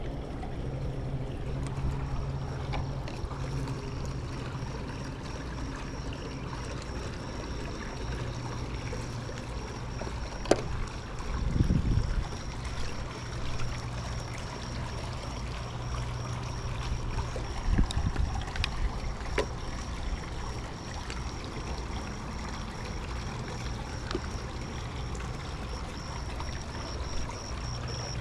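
A steady motor hum with water trickling, broken by a sharp knock and a short low rumble near the middle and another rumble later on.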